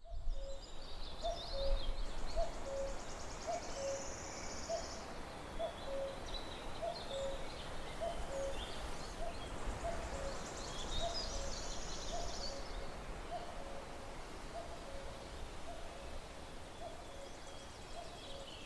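Countryside ambience: a low two-note hooting call repeated steadily about once a second, with higher bird chirps and two spells of buzzy trilling behind it.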